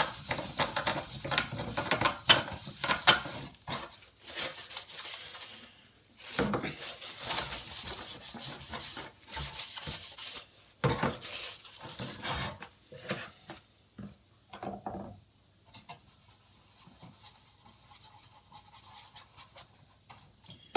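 Cloth wiping and rubbing over a hard plastic RC buggy body, taking off brake fluid and softened paint, in quick irregular strokes. The rubbing thins out and gets quieter in the second half.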